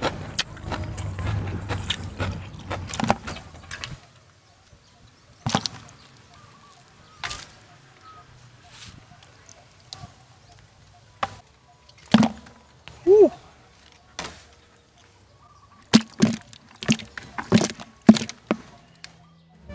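Blue PVC pipe eel traps knocking against a bucket as eels are tipped out, in scattered sharp knocks with a quick run of them near the end. It opens with a few seconds of dense, close handling and eating noise.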